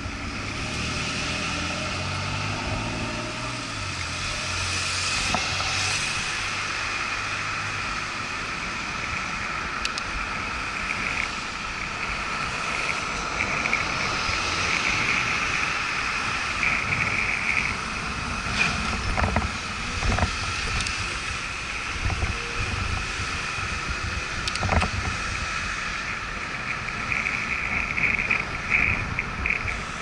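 Street traffic and road noise heard from a bicycle-mounted camera, with wind rumble and a steady high whine throughout. In the first few seconds a pickup truck's engine runs just ahead, its pitch shifting. A few sharp clicks come about two-thirds of the way through.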